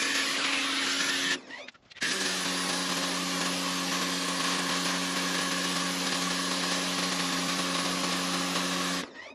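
Stanley SXPW22E electric pressure washer running: its motor and pump hum steadily under the hiss of the water jet striking a garage door. The sound cuts out briefly about a second and a half in and again near the end, then carries on.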